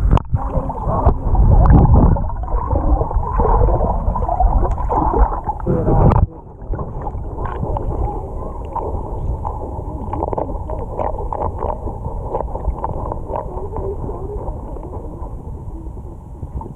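Muffled underwater sound of shallow surf water moving over a sandy bottom, heard from a submerged camera: a heavy low rumble that cuts off suddenly about six seconds in, then a quieter wash with many small crackling clicks.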